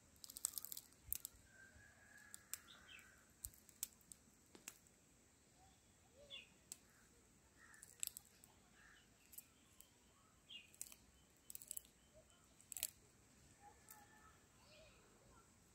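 Faint, scattered small clicks and snaps of coffee cherries being plucked from a branch by hand, with a few faint bird chirps in the background.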